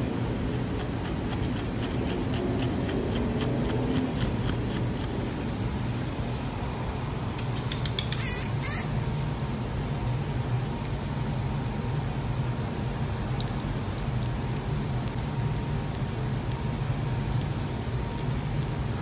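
Common marmoset giving a few very high-pitched squeaks about eight seconds in, then a thin steady high whistle a few seconds later, over a steady low hum. Faint rapid clicks run through the first half.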